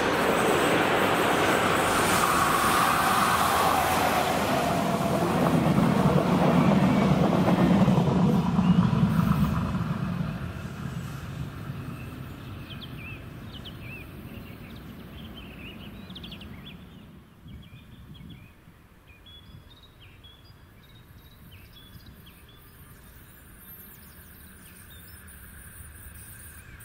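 DB Class 218 V12 diesel locomotive hauling a passenger train past: engine drone and wheel noise, loudest about eight seconds in, then fading away as it goes. Birds chirp as the train noise dies down.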